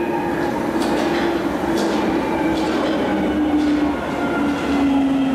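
London Underground tube train approaching through the tunnel into the station, its motor whine slowly falling in pitch as it slows, over a steady running rumble with a few clicks of wheels over the rails.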